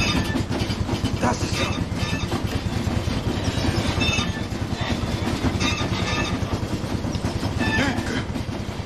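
Slaughterhouse processing machine running with a loud, dense grinding noise, a fast pounding rhythm underneath and scraping screeches over it. It is the racket that the musician hears as the metal sound his band has been looking for.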